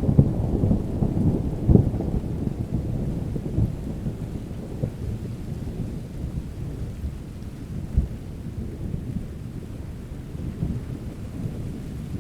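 Steady rain with a low rolling rumble of thunder, loudest in the first two seconds and then easing off, with a short sharp peak about eight seconds in.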